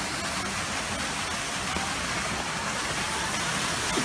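Steady rushing splash of water from a pond fountain.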